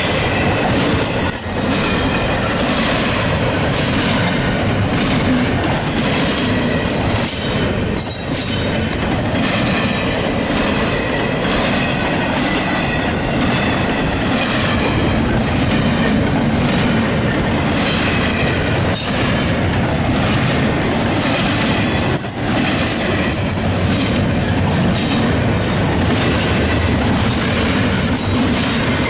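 Norfolk Southern double-stack container cars rolling past at close range: a loud, steady rumble of steel wheels on rail, with a sharp clack at a rail joint now and then and a faint wheel squeal running underneath.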